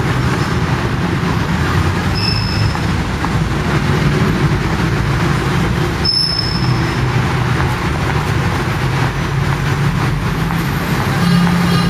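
Busy city street traffic: a steady low rumble of buses and cars passing close by. Two short high-pitched squeaks come about two and six seconds in.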